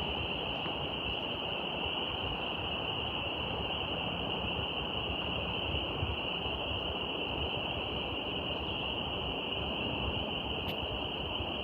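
Steady outdoor nature ambience: a constant high-pitched drone over a low rumbling hiss, with one faint click near the end.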